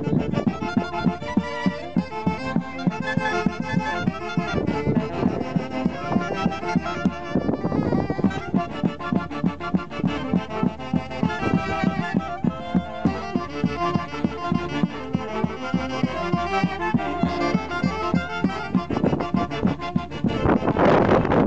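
Andean folk orchestra playing festive Santiago dance music with a steady beat. It grows louder and fuller near the end.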